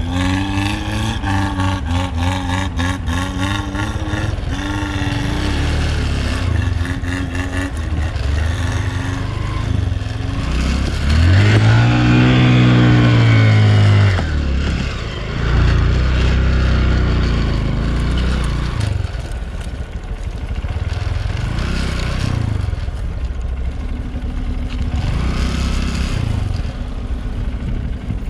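Off-road 4x4 vehicle engine running and revving up and down under load. The loudest rev, near the middle, rises and falls in pitch in one long arch.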